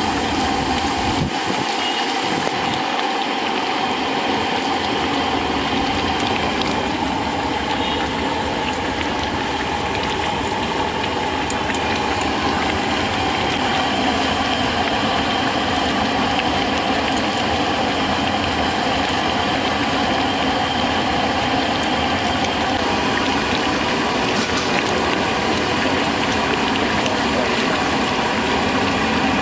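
A loud, steady mechanical hum, like a motor or pump running without a break.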